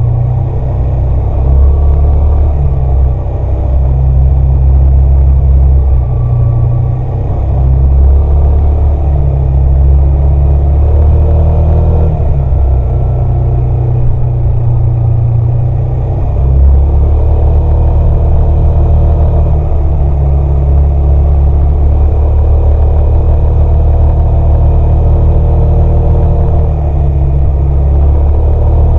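Stock Yamaha XMAX 300 single-cylinder engine and exhaust running while the scooter is ridden, a loud, deep rumble whose note shifts a few times as the throttle changes. Picked up by a microphone under the seat.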